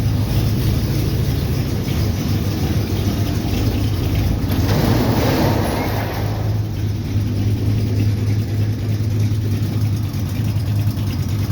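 Buick Electra's freshly broken-in V8 idling cold with a lope from its cam. A rushing noise swells for a couple of seconds in the middle. It has an exhaust leak on the right side, from the head pipe or the manifold gasket.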